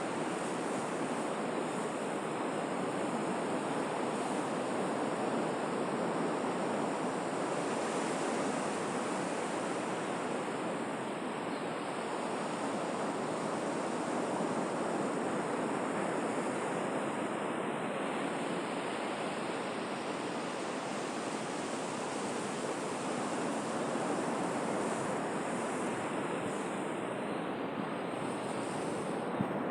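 Sea surf washing steadily onto the shore, a continuous rushing noise that swells and eases slightly.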